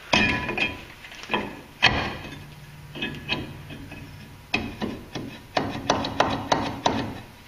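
Rust-bound steel brake rotor on an F250 Super Duty's front hub being whacked and rocked by hand, a string of uneven knocks and clunks that come faster near the end, as it sticks on the hub with rust.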